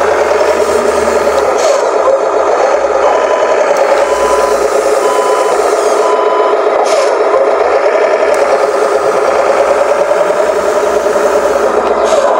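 Radio-controlled model truck running with a steady whine that wavers in pitch, and a string of reversing beeps, about two a second, for a few seconds in the middle.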